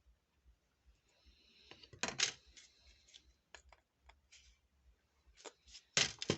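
Small hard objects being handled: scattered light clicks and ticks, with a louder clatter of knocks about two seconds in and again near the end.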